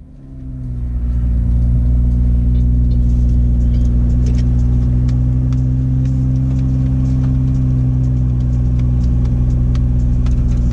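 BMW X4 M40i's turbocharged inline-six running steadily with the car standing still, heard from inside the cabin; it swells over the first second or so, then holds an even, low drone.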